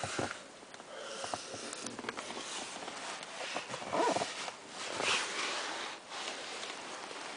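Handling and rustling noise from a handheld camera moving around a car interior, with irregular soft scuffs and breathy noises close to the microphone. A few louder rubs come around the middle.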